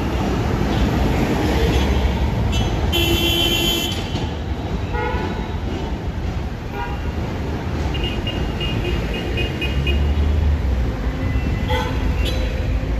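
Steady city street traffic rumble with horns sounding: one clear horn blast about three seconds in, lasting about a second, then several shorter toots.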